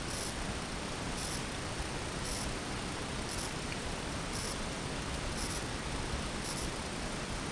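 Steady hiss of background noise, with a short high-pitched pulse about once a second.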